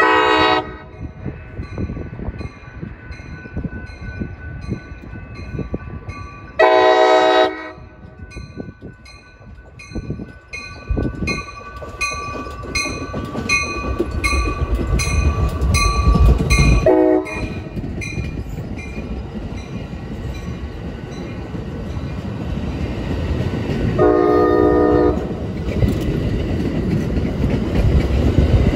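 Diesel locomotive air horn sounding four blasts as a train approaches. The second and fourth blasts are long and the third is short. Through most of the stretch a bell rings about twice a second, and the train's low rumble swells up midway.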